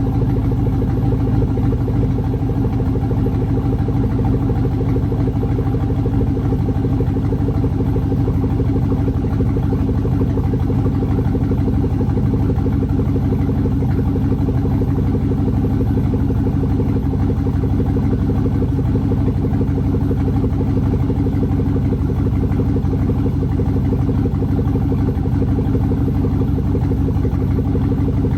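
An engine running steadily at a constant speed, with a fast, even pulse and no change in pitch.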